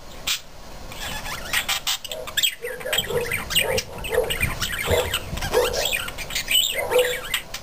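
Pet budgerigars chattering: quick high chirps and warbling squeaks, joined from about three seconds in by a lower note repeating about every two-thirds of a second.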